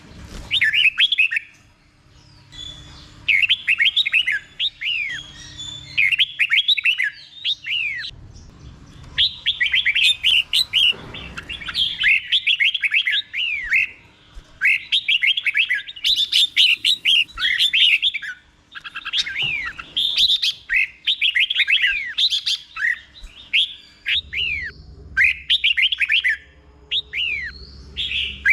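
Red-whiskered bulbul singing its 'doubled' song: phrases of quick, falling whistled notes, delivered in bursts every second or two.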